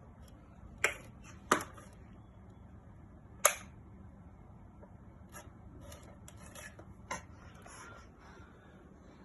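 A few sharp clicks or knocks over a low steady hum: three loud ones in the first few seconds, then a run of fainter clicks later on.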